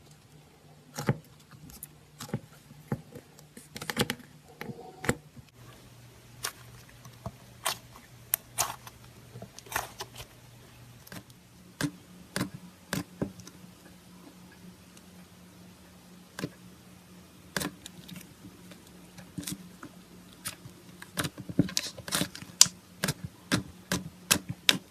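Slime being squeezed and poked by hand, giving many short, irregular sticky clicks and pops that come thicker near the end, over a faint steady low hum.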